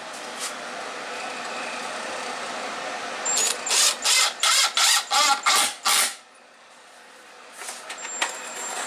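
Cordless drill/driver driving a screw into a pine shelf board: a steady run of the motor, then about eight loud bursts, roughly three a second, as the screw is driven home. A few light clicks near the end.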